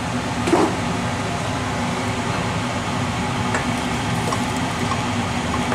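Seafood cream sauce heating towards the boil in a stainless steel pot on a gas hob: a steady hiss with a few small ticks and pops. There is a light knock about half a second in, and a wooden spoon stirs the sauce in the second half.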